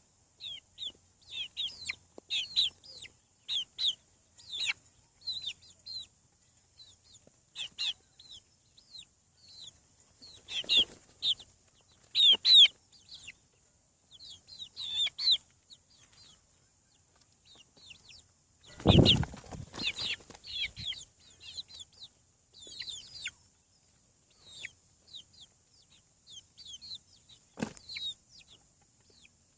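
Young chicks peeping over and over, each peep a short high note falling in pitch, coming in quick clusters. About two-thirds of the way through there is a brief loud rustling flurry, and a single sharp knock comes near the end.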